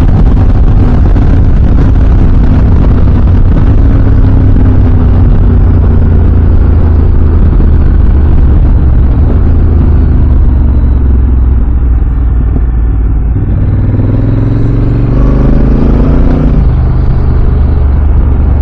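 Honda Africa Twin's parallel-twin engine running under way at road speed. About two-thirds of the way through the revs ease, then climb steadily as the bike accelerates, and fall back near the end.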